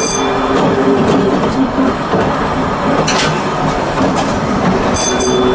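Volk's Electric Railway car running along the track: a steady electric motor hum under the rattle of the wheels on the rails, with a couple of knocks about three and four seconds in and a brief high-pitched ring near the end.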